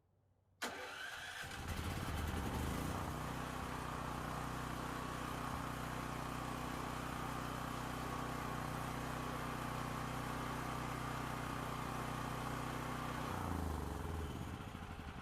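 Portable dual-fuel generator's engine running at a steady speed after being started with its rewired switch. Near the end its steady note breaks up and the sound begins to fade.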